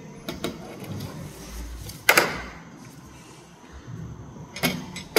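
Several sharp clicks and knocks of metal instruments being handled over a dissection tray. The loudest is a single knock about two seconds in, with a short ring after it.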